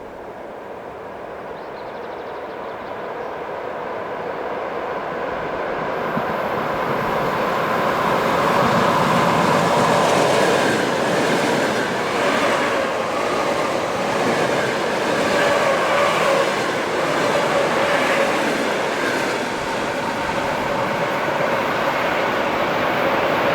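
Electric train approaching and passing on the rails. It grows steadily louder over the first several seconds, then runs past with rail noise, faint wheel clatter and a steady whine.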